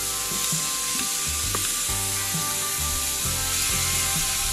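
Raw marinated chicken sizzling as the pieces are laid on a hot charcoal grill grate with metal tongs, with a few light clicks of the tongs. A background music track with a stepping bass line plays under it.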